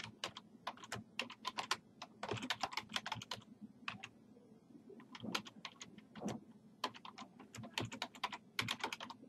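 Computer keyboard typing: quick runs of keystrokes with a short pause about four seconds in.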